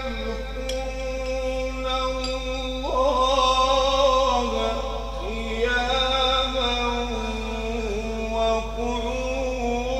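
Male reciter chanting the Quran in a long, drawn-out melodic style, holding sustained notes with ornamented turns, the pitch stepping up about three seconds in and again about five seconds in.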